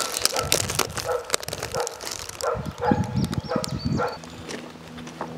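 A dog barking over and over, about two barks a second, with paper packaging rustling as it is handled; the barking stops about four seconds in, leaving a low steady hum.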